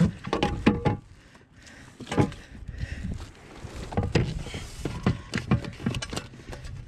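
Irregular knocks, clicks and clatter of a large bass being handled on a plastic measuring board against a kayak's deck.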